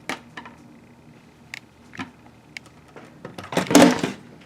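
Handling noises: scattered light clicks and taps, then a louder, noisy rustle lasting about half a second, three and a half seconds in.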